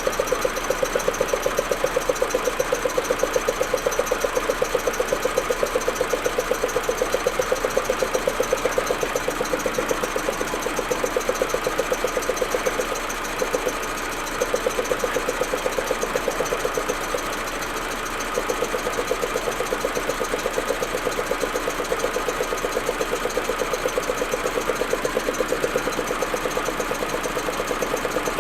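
Audi A4 1.8T turbocharged four-cylinder engine idling roughly, with a fast, uneven pulsing that falters briefly twice in the middle. This is the rough, stuttering cold idle the owner is chasing, which persists despite new spark plugs, coils and vacuum hoses and throws no fault codes.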